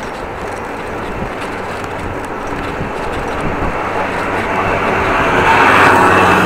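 A motor vehicle approaching on the road, its noise growing steadily louder and peaking near the end.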